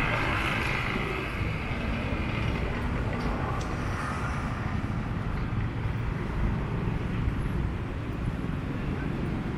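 City street traffic: a steady rumble and hiss of passing vehicles, with one engine fading away in the first second.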